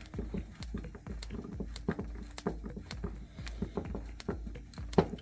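Klutch screwdriver driving a wood screw into a 2x4 by hand: irregular clicks, creaks and knocks as the handle is turned and regripped and the board shifts, with one sharp knock near the end.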